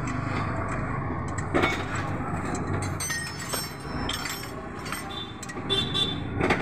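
A steel wrench clinking and clicking against the bolts of a clutch pressure plate as it is bolted onto the flywheel, in irregular metallic knocks with brief ringing clinks; the sharpest knocks come about a second and a half in and near the end.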